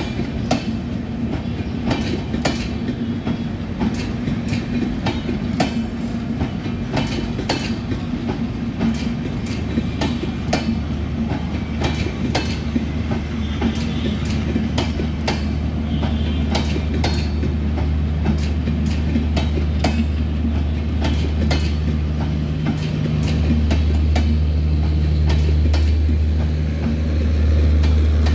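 Maitree Express passenger coaches rolling slowly past, their wheels clicking over the rail joints over a steady rumble. A low hum grows louder in the second half.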